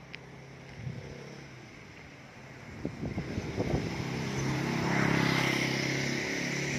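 A motor vehicle's engine running, a steady hum that grows louder about four seconds in, with a few knocks and rattles just before.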